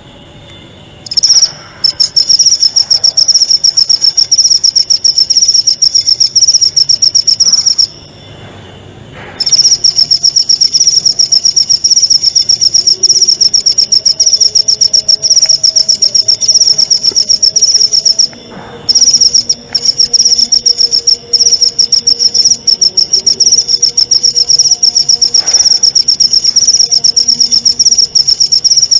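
Singing insect, a cricket or small grasshopper of the kind used in bird-tutoring recordings, giving a loud, rapid, high-pitched pulsed trill in long runs. It starts about a second in, pauses for about a second and a half near the 8-second mark, and breaks briefly again past the middle.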